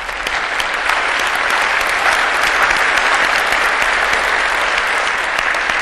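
Audience applauding, a dense patter of many hands that swells over the first couple of seconds and thins out near the end.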